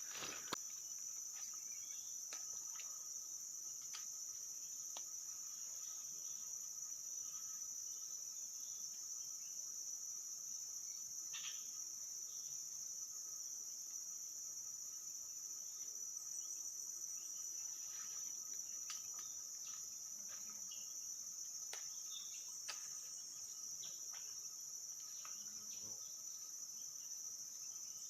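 Steady, high-pitched drone of forest insects, unbroken throughout, with a few faint scattered clicks.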